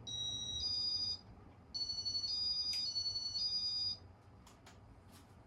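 Electronic melody of steady high beeps stepping between a few pitches, in two phrases with a short gap after about a second, like a phone ringtone. Under it runs the low steady hum of the ceiling fan's motor.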